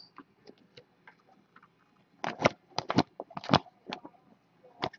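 Stiff foil-finish baseball cards being flicked and slid against each other in the hands: a quick run of short snapping clicks about two to four seconds in, and one more near the end.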